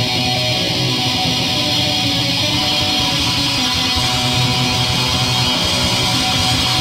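Metal music: distorted electric guitars strumming sustained chords at a steady level, with no drums.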